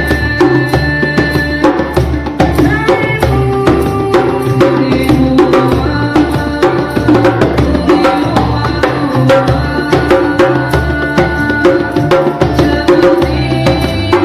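Djembe played in a quick, steady hand-drum rhythm, backing a melodic song with sustained pitched lines.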